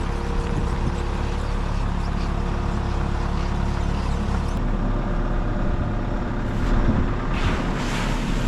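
Vehicle engine running steadily, its low rumble dropping a little over halfway through.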